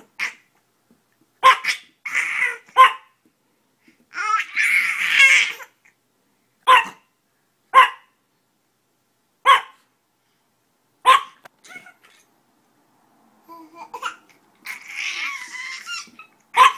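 A chihuahua gives single sharp, high yaps every second or two. A baby answers with breathy fits of laughter in between.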